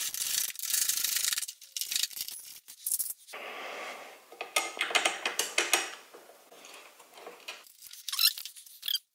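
Small metal hardware clicking and rattling as bolts, washers and nuts are handled and fitted by hand into a steel license plate bracket, in sharp clinks and short bursts of jingling. The sound cuts off near the end.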